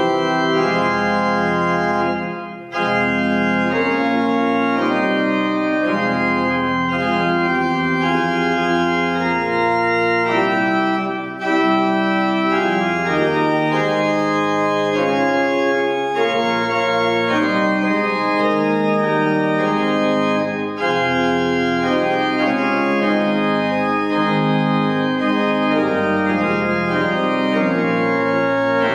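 Pipe organ playing a slow piece in held chords, with brief breaks between phrases about two and a half seconds and eleven seconds in.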